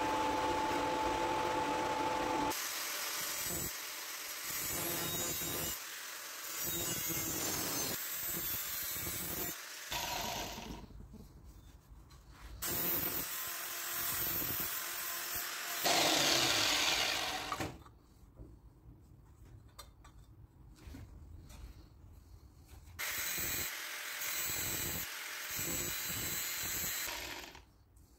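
Power-tool work on metal, a hissing grind that cuts in and out abruptly in short stretches.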